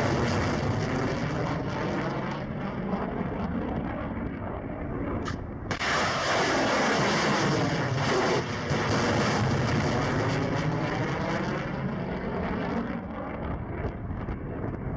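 Rocket motors of missiles in flight after launch: a loud, continuous rushing noise that sweeps in pitch as the missiles climb away. It changes abruptly about six seconds in.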